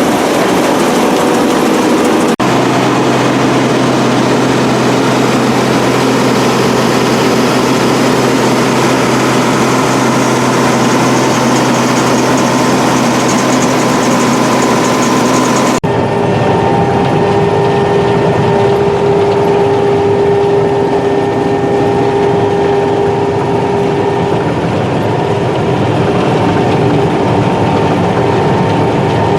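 Claas Mega 204 combine harvester running while harvesting sunflower: a loud, steady mechanical drone with several held tones, changing abruptly twice, about two seconds in and again about halfway through.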